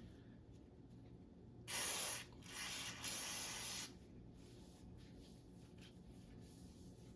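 Aerosol can spraying lubricant onto an Olympic barbell, three hissing bursts about two seconds in, the last the longest.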